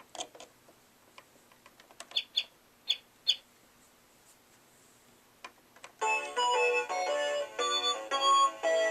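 Mattel See 'n Say Baby toy playing electronic sounds: a few short chirps, then about six seconds in a bright, beeping electronic tune starts.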